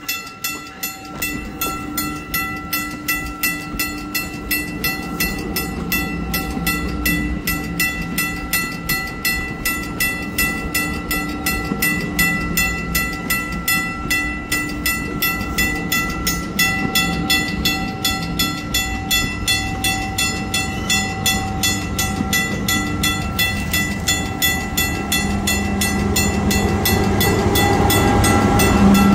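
Railway crossing bell ringing in a steady pulse of about two strikes a second, while the low rumble of an approaching exo commuter train grows louder toward the end.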